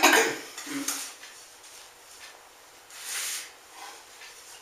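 Hands mixing and rubbing soft flour-and-butter dough in a glass bowl, in soft rubbing, squishing strokes. A short louder sound comes right at the start, another smaller one about a second in, and a soft rustling stroke about three seconds in.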